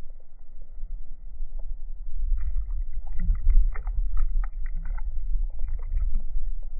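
Lake water splashing and sloshing beside a canoe as a smallmouth bass is let go, over a low rumble of wind on the microphone. From about two and a half seconds in comes a quick run of small splashes and knocks.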